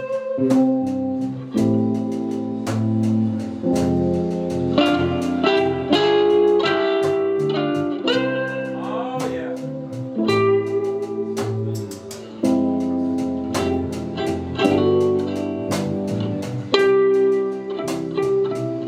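Live band music led by plucked guitar, playing steadily throughout.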